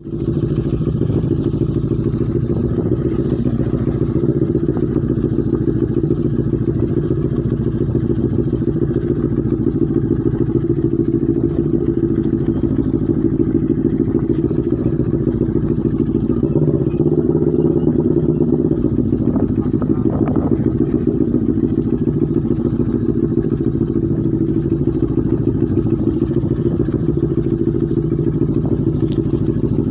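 Motorcycle engine running at low, steady revs while the bike rides over a dirt trail.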